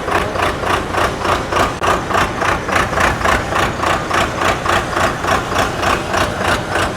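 Pneumatic drill rig's engine running steadily, with an even rapid pulsing of about three beats a second.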